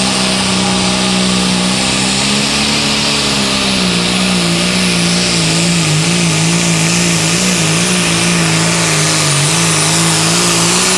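John Deere Pro Stock pulling tractor's turbocharged diesel engine running wide open under load as it pulls the sled, with a steady high turbocharger whine over it. The engine note sags a little about four seconds in and wavers as the load builds.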